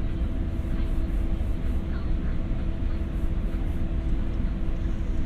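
Steady low rumble inside a Shanghai Metro Line 2 train, with a constant mechanical hum over it.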